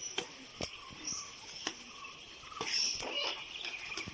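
Outdoor forest ambience: short high chirps from a bird or insect, over a faint steady insect hum, with several sharp clicks.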